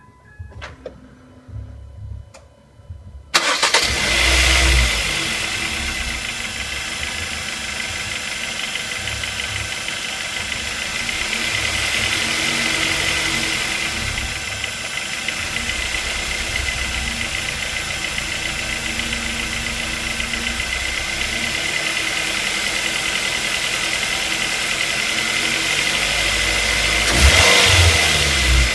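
Ford Focus 2 Duratec 2.0 four-cylinder engine cranking and starting after a few faint clicks, about three seconds in, then idling steadily with a brief louder swell near the end. The idle carries the knock from the bottom of the engine, near the crankshaft pulley and air-conditioning compressor.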